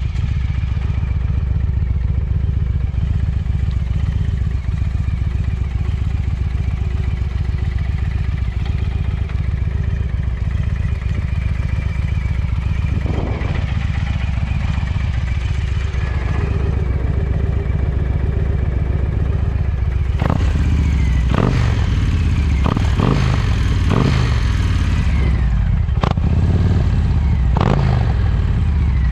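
2013 Victory Boardwalk's V-twin running through an upgraded aftermarket exhaust, idling steadily with a deep, uneven beat. From about two-thirds of the way in it is revved with a series of six or seven quick throttle blips, each rising and falling back to idle.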